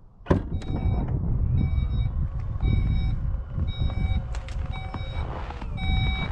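Reversing warning beeps from a Volkswagen ID.Buzz electric van, about six evenly spaced beeps at roughly one a second, over a heavy low rumble.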